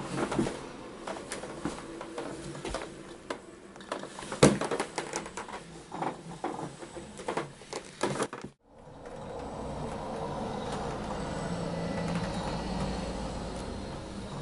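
Irregular clicks, knocks and scuffs from a Ninebot One S2 electric unicycle rocking back and forth on a rug-covered balcony floor. After a brief break about two-thirds of the way in, a steadier low hum takes over with fewer knocks.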